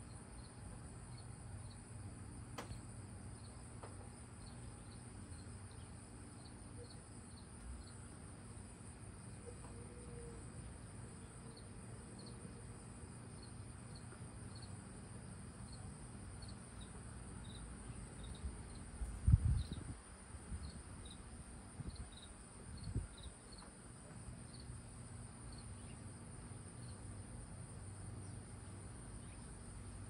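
A cricket chirping in short, high pulses, about one or two a second, over a steady high-pitched insect drone. Low wind rumble runs underneath, and two soft bumps come a little past halfway, a few seconds apart.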